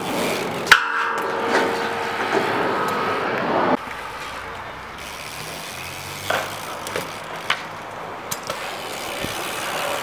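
BMX tyres rolling on skatepark concrete, with a sharp knock about a second in and a few lighter clicks later. The rolling noise drops away about four seconds in.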